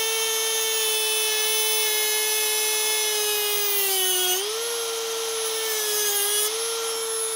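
Dremel rotary tool with an abrasive cut-off wheel running at a steady high whine while cutting through a metal outer throttle cable. The pitch sags as the wheel bites, about four seconds in and again about six seconds in, then comes back up.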